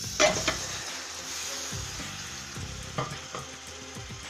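Raw chicken pieces going into hot oil and fried curry spices in a metal pot, sizzling steadily as they fry. Spoon knocks and scrapes come about half a second in and again about three seconds in as the chicken is pushed in and stirred.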